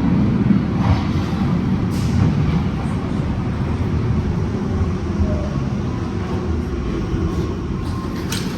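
BVG Class F Berlin U-Bahn train arriving, a steady low rumble that eases slightly as it runs in, with a few sharp clicks near the start and near the end.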